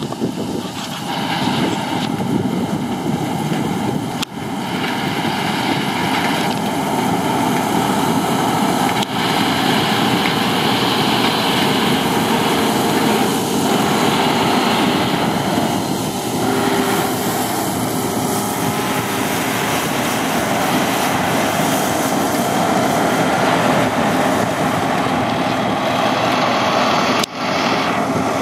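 Deutz-Fahr M1002 combine harvester running steadily while harvesting buckwheat: a loud, even drone of its diesel engine and threshing machinery, briefly dipping twice.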